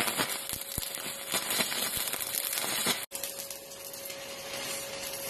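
Arc welding a steel plate onto a propane-tank forge body: a dense, steady crackle for about three seconds. The crackling then cuts off sharply and a fainter steady hiss with a faint hum follows.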